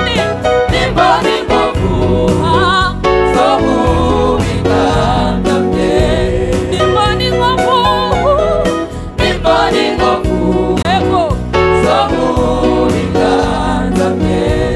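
Gospel song: voices singing over a steady instrumental backing.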